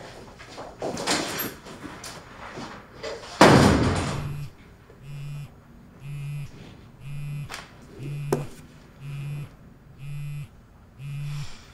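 A door slams shut hard about three and a half seconds in. Then a mobile phone vibrates with an incoming call: seven short, even buzzes, about one a second.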